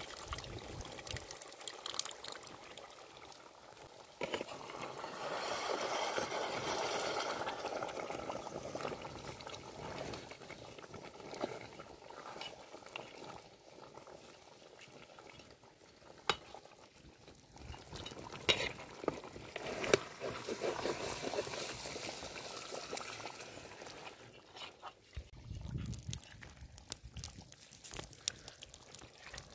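Curd being poured and stirred into mutton cooking in a pot, with a wet bubbling and stirring noise. It is loudest for a few seconds about four seconds in.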